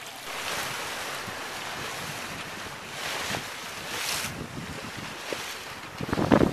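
Wind and open-sea water noise on a sailing yacht, with wind buffeting the microphone; the buffeting gets heavier and louder near the end.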